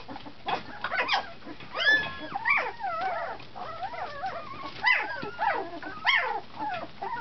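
A litter of young puppies whining and squealing, many high wavering cries overlapping one another. The puppies are hungry and want to nurse.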